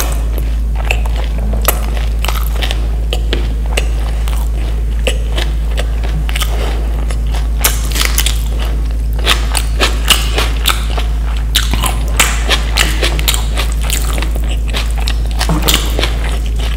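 Close-miked eating: chewing and biting food, with many sharp wet mouth clicks scattered throughout and more of them in the second half, over a steady low hum.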